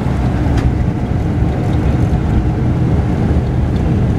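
Mercedes-Benz O-500RSD coach's diesel engine running steadily under way, a continuous low drone with road noise, heard from inside the upper deck of the double-decker.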